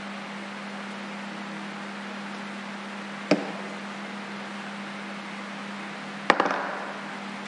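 Wooden ice cream sticks knocked against a table twice, about three seconds apart. The second knock is louder and trails into a short clatter. A steady room hum runs underneath.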